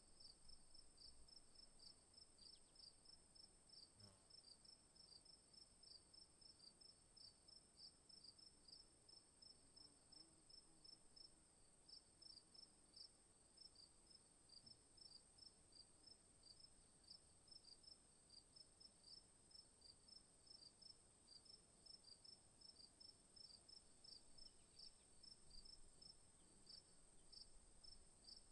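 Faint chorus of singing insects: a steady high-pitched trill with a second insect chirping rhythmically over it, a few chirps a second.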